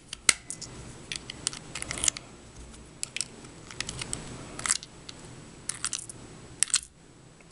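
Nickels being pressed into the slots of a plastic Charlie coin changer: a string of about fifteen short, sharp clicks and clinks of metal coins against the plastic and against each other.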